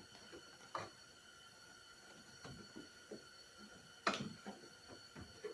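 A few faint clicks and taps of a stiff plastic panel being handled and pressed into place by hand, the clearest about four seconds in.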